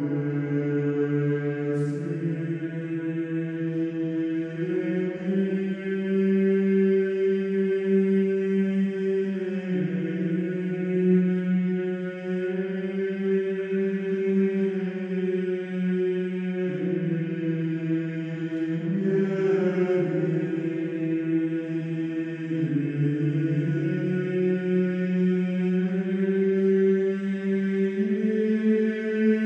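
Slow chanted vocal music: several voices hold long sustained notes together, moving to a new pitch every few seconds.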